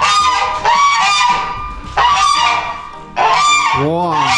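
Domestic geese, both of them ganders, honking loudly in a series of long, harsh calls one after another.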